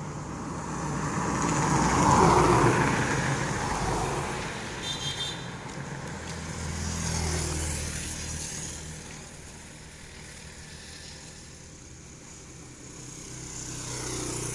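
Motor vehicles passing by on the road one after another, each swelling and fading. The loudest passes about two seconds in, another around seven seconds, and a motorcycle rides past near the end.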